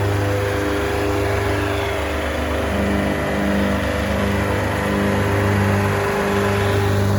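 Diesel engine of a Greenmech Fast Tow wood chipper running at a steady speed, with a faint throb that comes and goes.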